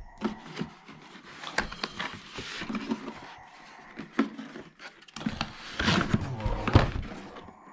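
Hard plastic tool case being slid out of its cardboard box: cardboard scraping and rustling with irregular knocks of the case, the loudest knocks in the second half.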